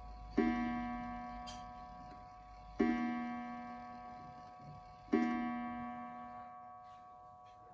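Art Deco wooden mantel clock with a Haller movement striking twelve on its gong: three single strikes about two and a half seconds apart, each ringing out and slowly fading.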